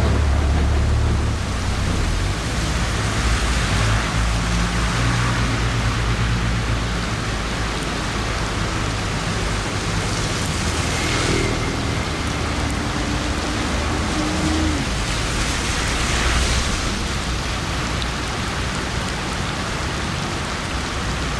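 Heavy rain falling and water running on a street during a storm, a loud steady hiss, with a low hum underneath.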